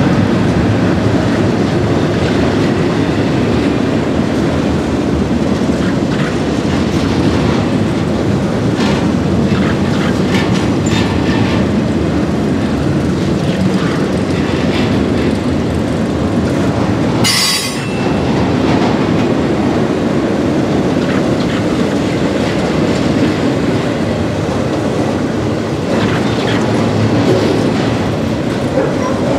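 A Florida East Coast Railway intermodal freight train, with trailers on flatcars, rolling steadily past at close range: a continuous heavy rumble with the clatter of wheels over the rails. There is one brief high-pitched squeal a little past the middle.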